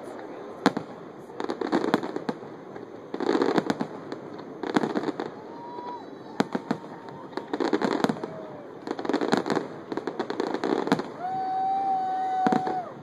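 Aerial fireworks display: shells bursting in a run of sharp bangs, with a crackling burst about every second and a half.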